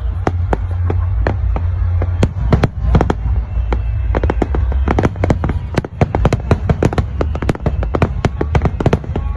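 Fireworks going off in quick strings of sharp cracks, spaced out at first and coming thick and fast from about halfway through, over a steady low rumble.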